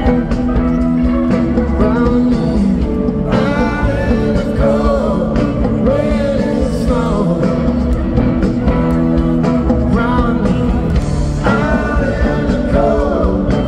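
Live rock band playing at full volume, with an electric guitar line over the band.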